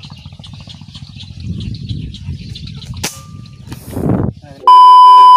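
A single sharp air rifle shot about three seconds in, fired at a cormorant in a tree. About a second and a half later a loud, steady electronic beep sounds for about a second, much louder than the shot.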